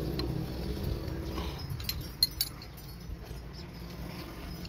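Steel open-end spanners clinking against the rocker-arm tappet adjusters of a Massey Ferguson 240 tractor engine during valve tappet clearance setting, with a cluster of sharp metal clicks about two seconds in, the loudest two close together. A wavering pitched call fades out in the first second and a half.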